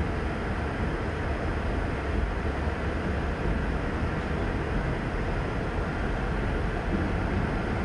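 Covered hopper cars of a CSX freight train rolling past, a steady rumble of steel wheels on the rails.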